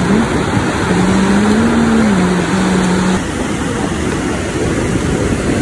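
Steady rush of waves breaking on the shore, with a wavering low hum over it for the first three seconds that stops suddenly as the noise drops a little.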